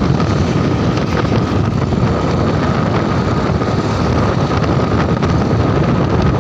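Small motorcycle's engine running steadily under way, with wind buffeting the microphone.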